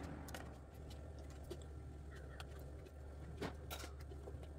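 Faint, occasional soft taps as slices of fried vegetables are laid by hand into an aluminium pot, over a steady low hum.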